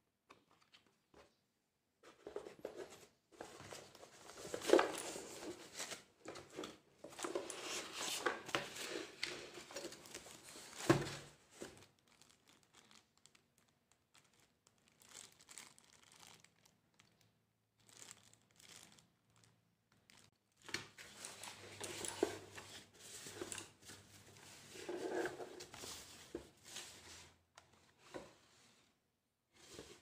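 Crinkling and rustling of paper and plastic packaging being handled, in two long spells with a quieter stretch of small handling sounds between.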